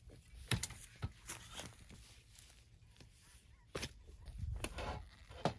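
Digging in garden soil for sweet potatoes: a handful of sharp, irregular strikes and scrapes as the ground is worked, about five in all.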